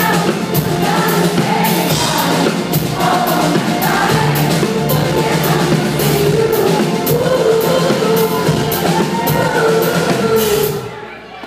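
Live pop song: a woman singing into a microphone over a steady drum beat and bass, played loud through a PA. The music stops sharply near the end as the song finishes.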